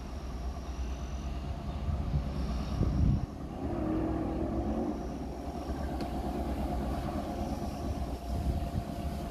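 Low, steady rumble of a distant vehicle engine, with a louder surge about three seconds in.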